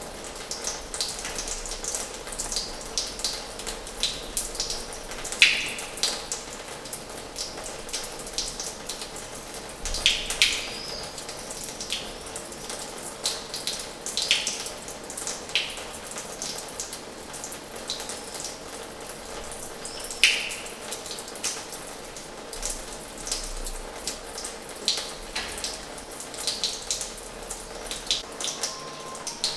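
Water flowing from the tap of an old washhouse: a steady splashing hiss with irregular drips and plops, a few louder ones about five, ten and twenty seconds in.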